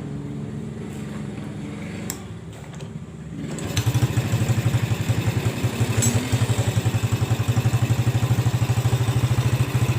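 Yamaha Jupiter Z single-cylinder four-stroke motorcycle engine, freshly rebuilt with an oversize piston, starts about four seconds in after a steady low hum and settles into an even idle. It runs smooth, without the knocking it had before the rebuild.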